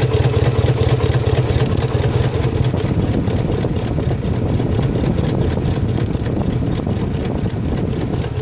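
Subaru EJ25 2.5-litre flat-four engine running, with a rapid, regular clicking over the engine sound. The clicking comes with throttle and is taken by the owner for an electrical short.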